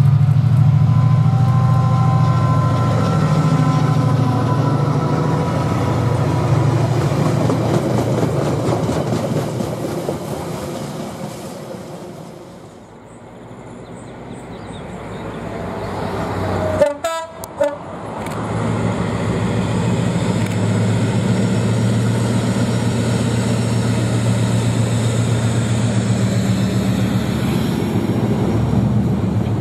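Diesel locomotive engines working hard under power. First, Class 68 No. 68001's V16 diesel passes close, loud, and fades away. Then a second diesel locomotive's engine builds up as it hauls a freight train, with two brief loud noises just after the midpoint.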